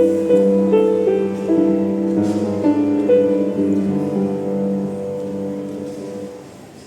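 Piano playing the closing phrase of a slow song: single notes over sustained chords, ending on a held chord that dies away near the end.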